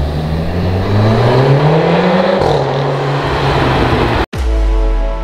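VW Golf R's turbocharged four-cylinder engine through a Remus valved cat-back exhaust, revving up as the car accelerates, with its pitch climbing for about two seconds before it eases off. About four seconds in the engine sound cuts off abruptly and soft music begins.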